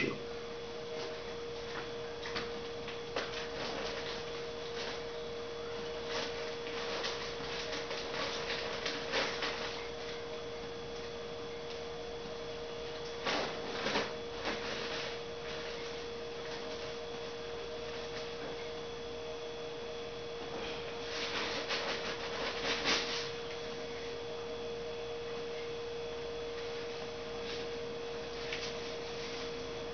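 A steady hum on one held tone, with faint scattered clicks and rustles that cluster briefly about a third of the way in, near the middle, and again around two-thirds through.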